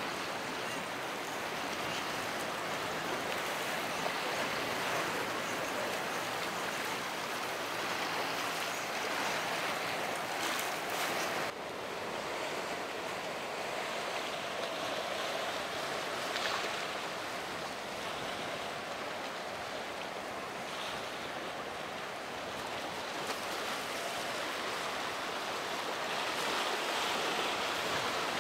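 Waves and rushing surf with wind noise on the microphone, a steady wash of sound that changes abruptly about eleven seconds in.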